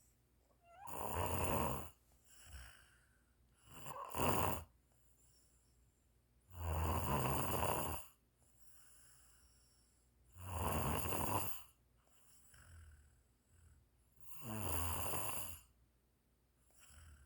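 Snoring in slow, regular breaths: a loud snore about every four seconds, each lasting about a second, with shorter, softer breath sounds between them.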